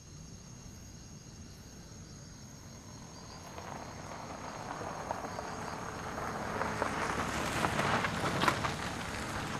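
A car approaching up a gravel drive, its engine and tyres faint at first and growing steadily louder, with gravel crackling under the tyres as it draws close and pulls up near the end.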